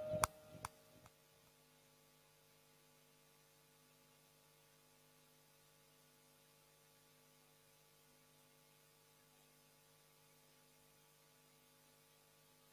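Near silence: the sound track drops out after a few faint clicks in the first second, leaving only a very faint steady hum.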